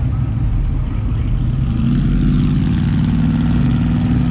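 Lifted pickup truck engines running close by, with a steady, louder engine note coming in about two seconds in.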